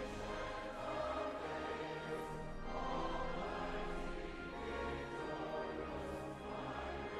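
Background music with sustained choral or orchestral tones over a steady bass.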